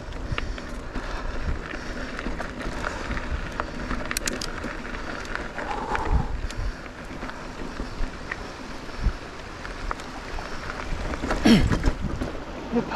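Bicycle being ridden off-road: steady tyre and trail noise with frequent small clicks and rattles, and a louder brief clatter near the end.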